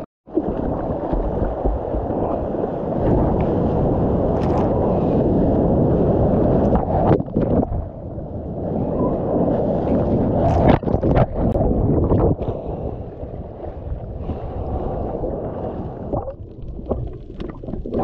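Rushing water of a breaking wave and its whitewash heard through an action camera's waterproof housing, a dense, muffled wash with sharp splashes scattered through it. It is loudest in the first half. Near the end it drops to a quieter, duller wash as the camera goes under the surface.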